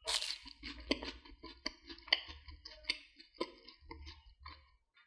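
Crunching of a crispy fried potato cake as it is cut on a plate, with a crisp crackle at the start and irregular sharp clicks about every half second.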